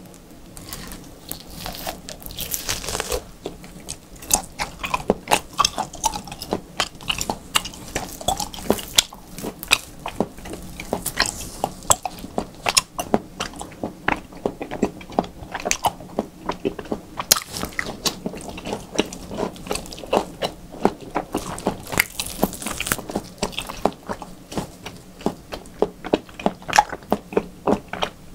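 Close-miked mouth sounds of a person biting and chewing raw beef: a dense, continuous run of sharp smacks and clicks.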